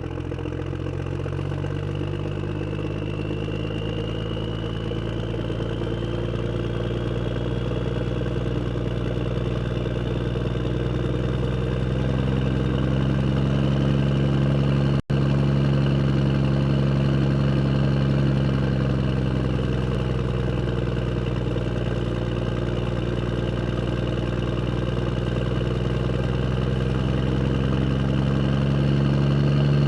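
Engine idling steadily and growing slowly louder, with a brief dropout to silence about halfway through.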